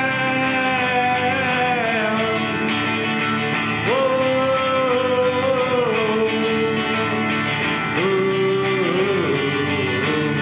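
Music: a strummed acoustic guitar under long held melody notes that bend and slide in pitch, with new notes coming in about four and eight seconds in.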